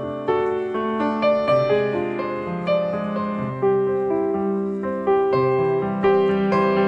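Background piano music, each note struck and then fading.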